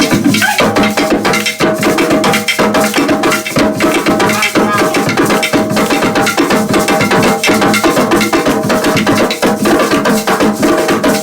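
Live drumming: fast, dense hand-drum strokes over a steady rhythm, with other struck percussion mixed in.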